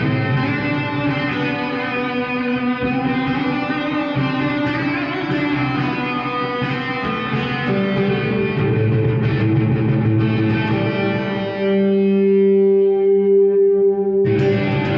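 Electric guitar played through a Marshall MG100HFX amp on its overdrive channel, with heavy reverb and delay: hard-rock chords and single notes. A held note rings for a couple of seconds before a new, brighter chord comes in near the end.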